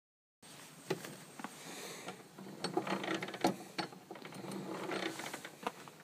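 Snowblower wheel, axle and drive gear being turned by hand, with metal rattling and a few irregular sharp clicks. The axle spins free of the gear because its hi-pro key has dropped out.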